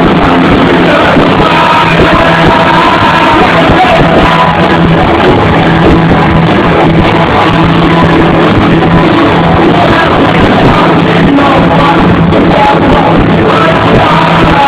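Live punk rock band playing loud, with singing over guitars, bass and drums, heard in a large hall. It is captured on a mobile phone's microphone, so it sounds overloaded and muffled, with the highs cut off.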